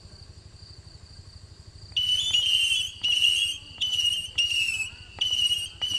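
800-shot whistling firework cake (fluitcake) firing: about two seconds in, shrill whistle shots start, each a steady high whistle lasting half a second to a second, following one another at about one to two a second. Before that, only a faint steady high tone over a low hum.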